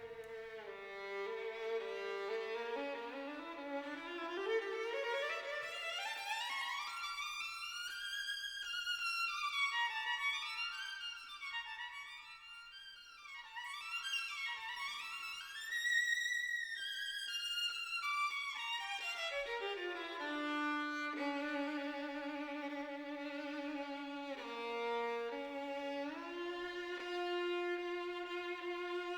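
Background music led by a bowed violin, its melody sweeping up and down in long glides, then settling into held notes.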